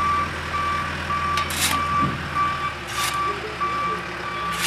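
Backhoe loader's reversing alarm beeping steadily, about two and a half beeps a second, over its diesel engine running, with three short bursts of hiss in between.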